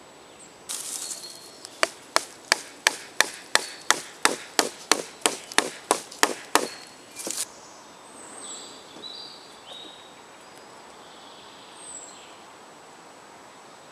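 A wooden stick used as a mallet knocks a knife's blade down into a branch below a knot, about fifteen sharp blows at roughly three a second that stop about halfway through.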